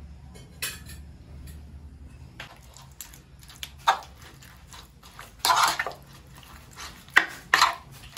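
A metal spoon clinking and scraping against a bowl while stirring turmeric into raw prawns in their marinade, in irregular short strokes with the loudest scrapes a little past halfway.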